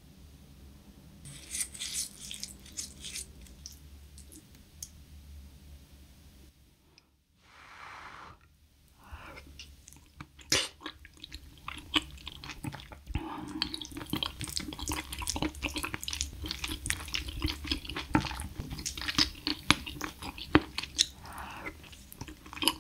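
Close-miked eating sounds of thick bomal (sea-snail) porridge: a utensil stirring and scooping in the bowl at first, then, from about ten seconds in, wet mouth sounds and chewing with many small sharp clicks.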